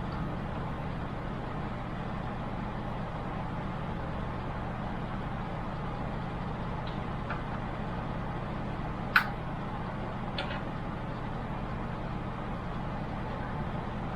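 Steady low hum with a few small clicks and knocks from computer parts being handled, the sharpest click about nine seconds in.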